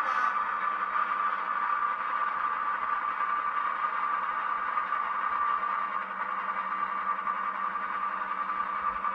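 DCC sound decoder in an N gauge Farish Class 55 Deltic model playing a Napier Deltic diesel engine running steadily through the model's small twin speakers. It is a steady drone with one strong mid-high tone over a rough hum.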